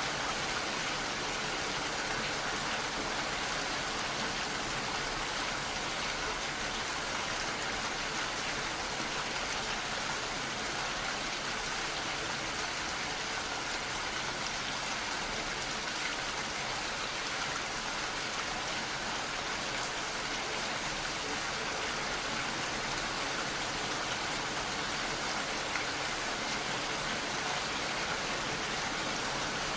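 Steady rain falling, a continuous even hiss of drops without let-up or single loud strikes.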